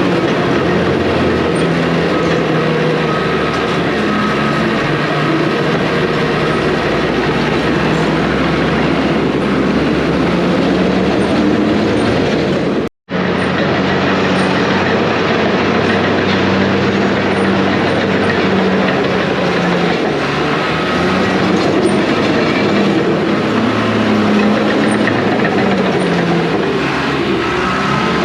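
Diesel earthmoving machinery running steadily while working rock fill, with engine tones rising and falling and a steady mechanical clatter. The sound breaks off for an instant about thirteen seconds in, then carries on.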